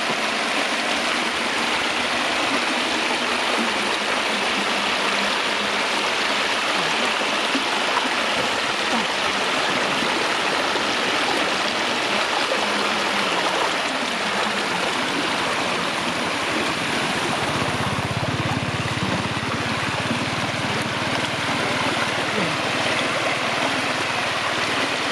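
Floodwater rushing steadily, a continuous loud flow of water.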